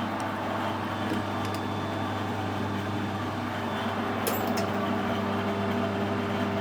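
Metal lathe running steadily while machining a brass bar: a constant motor hum with even cutting noise, and a few faint ticks a little past halfway.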